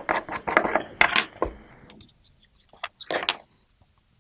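Plastic screw cap being unscrewed from a glass ink bottle: a quick run of sharp rasping clicks over the first second and a half, then a few scattered ticks and a short scraping sound about three seconds in.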